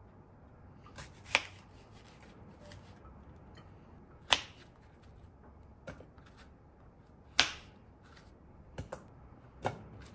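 A fruit knife cutting a pear on a cutting board: three sharp knocks of the blade meeting the board, about three seconds apart, with fainter taps between.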